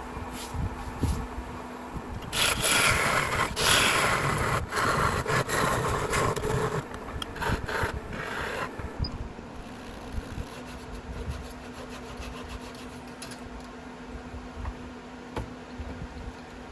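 Hickory being cut through at the base of a turned mallet to part it off: a loud scraping cut that starts about two seconds in, pauses briefly a few times and stops after about six seconds. A quieter steady hum follows.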